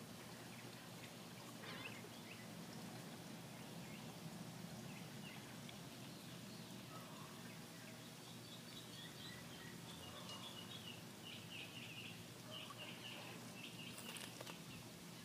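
Faint outdoor ambience with small birds chirping in the background: short high notes repeated over and over through the second half. A single sharp click sounds near the end.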